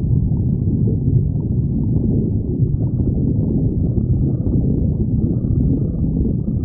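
A person's stomach growling: a continuous low, muffled rumble without a break.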